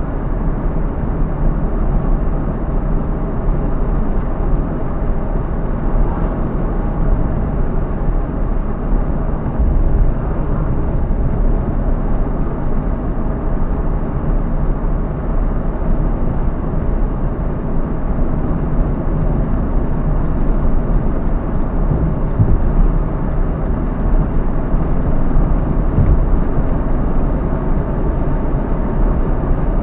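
A car driving: steady engine and road noise, with a couple of faint knocks about two thirds of the way through.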